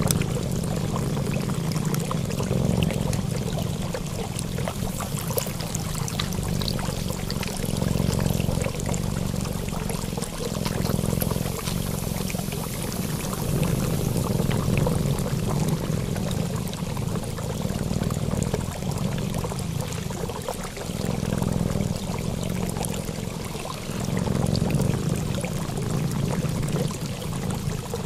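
Continuous running water, a steady rush that swells and eases every few seconds.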